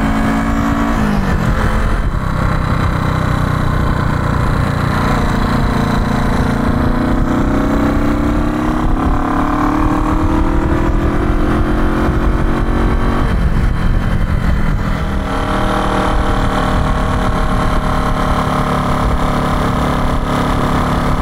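1970 Honda CB350's air-cooled parallel-twin engine running on the road. Its pitch drops briefly about a second in, then climbs slowly for about ten seconds as the bike pulls, changes sharply about two-thirds of the way through, and holds steady after that, with wind rumble on the microphone underneath.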